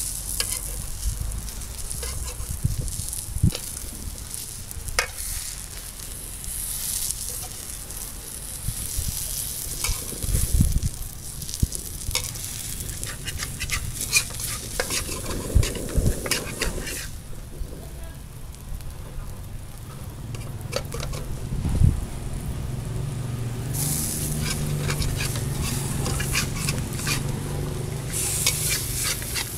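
Egg and vegetable omelette sizzling in oil in a metal frying pan, with a metal spatula scraping and knocking against the pan as the egg is pressed flat and folded. The sizzle dies down for several seconds after the middle, then picks up again.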